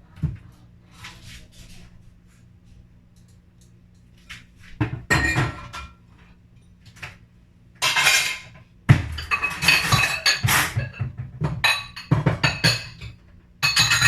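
Dishes, glasses and cutlery clinking and clattering as they are moved and stacked. It comes in several bursts of handling after a few fairly quiet seconds, the busiest stretch about nine seconds in.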